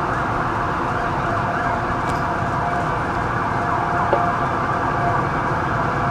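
Distant emergency-vehicle sirens wailing over a steady street din.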